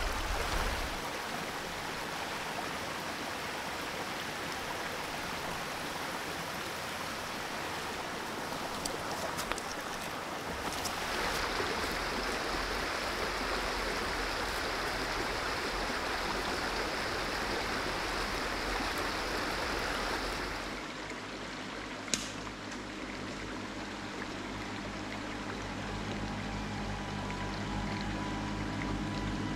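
Shallow stream running over rocks, a steady rush of water that gets louder about a third of the way in and softer again about two-thirds in. A single sharp click sounds shortly after the drop.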